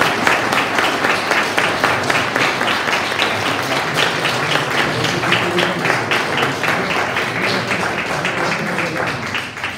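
Applause from a small group of people clapping, dying away at the end.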